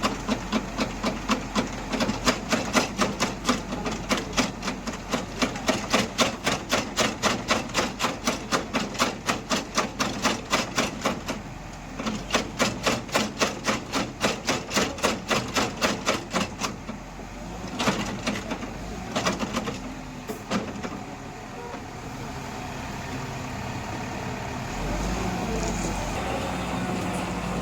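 Machinery knocking rhythmically, about four knocks a second, which stops about sixteen seconds in after a few last separate knocks; an engine then runs steadily, a little louder near the end.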